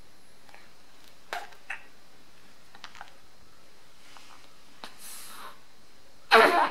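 Sleeping baby's soft mouth clicks and breaths, with a short, louder snuffle near the end.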